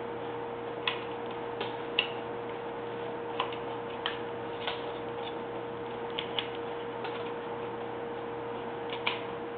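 Carving knife cutting into wood: irregular sharp clicks as the blade slices and chips snap off, about ten in all, over a steady hum.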